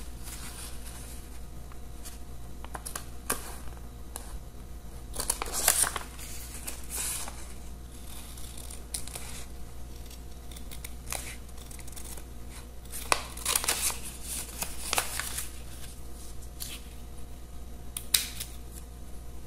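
Scissors snipping through paper in several short runs of cuts, with the paper handled and rustled between them.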